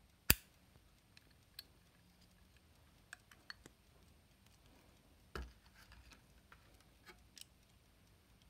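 Antique pocket watch cases handled in the fingers: one sharp metal snap just after the start as a pair case is pressed shut, then scattered light clicks and a duller knock about five seconds in.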